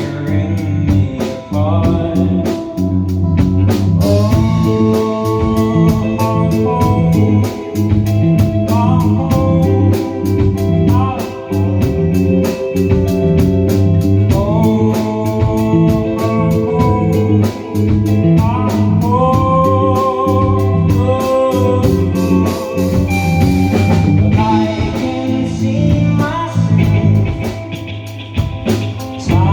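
A rock band playing live with a lead singer: a sung melody over guitar and drum kit.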